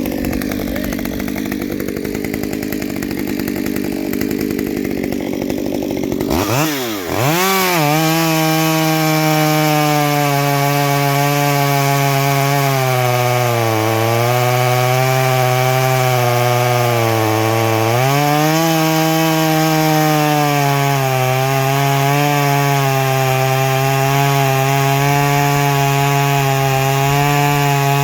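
Ported Stihl MS 194 T top-handle two-stroke chainsaw running at full throttle. About seven seconds in, the revs drop sharply and it settles into cutting wood. Its pitch sags lower under heavier load midway, then picks back up.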